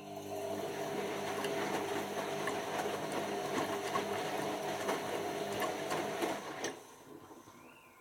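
Beko WM5100S washing machine turning its drum in the wash: the motor hums steadily while the wet laundry tumbles and sloshes, then the drum stops turning about two-thirds of the way through.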